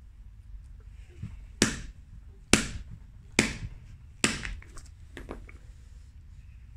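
A short-handled sledge hammer's steel head strikes a hard Task 12 tooling-resin disc resting on a brick, four sharp blows a little under a second apart, each ringing off briefly.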